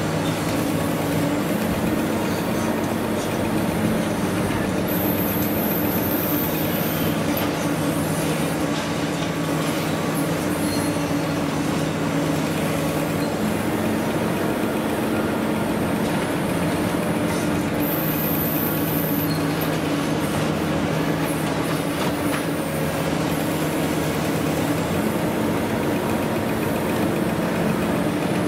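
Long-reach demolition excavator running steadily, its diesel engine and hydraulics working the jaw attachment in the building's wreckage. A constant engine hum with an even noise over it, its pitch shifting slightly now and then.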